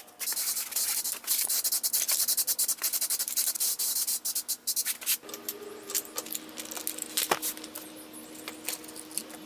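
Aerosol spray paint can hissing in many quick pulses for about the first five seconds. After that come quieter clicks of painted wooden parts being handled over a steady low hum.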